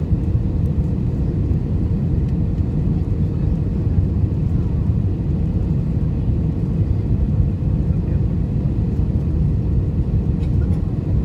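Airbus A320 cabin noise in flight on approach: a steady low rumble of the engines and airflow, with a faint steady hum.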